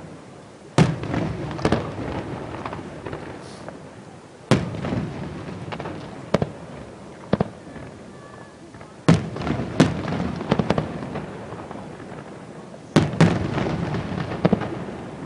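Aerial firework shells bursting overhead: about a dozen sharp bangs at irregular intervals, some in quick pairs, each followed by a trailing echo.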